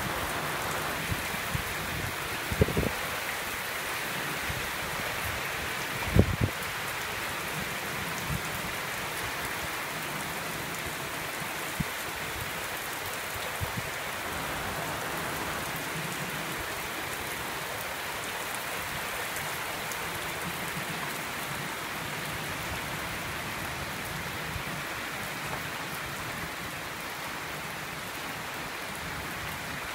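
Heavy rain pouring steadily onto standing water, paving and foliage, an even hiss. There are a few brief low thumps in the first seven seconds.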